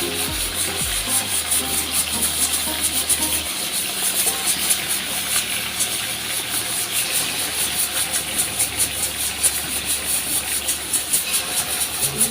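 Chicken pieces frying in hot oil with sautéed onion and garlic, a steady sizzle full of fine crackles, under background music.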